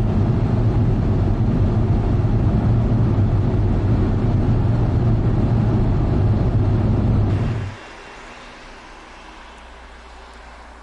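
Steady engine and road noise inside a moving car's cabin, loud and low. About seven and a half seconds in it cuts off suddenly, leaving only a faint, even outdoor hiss.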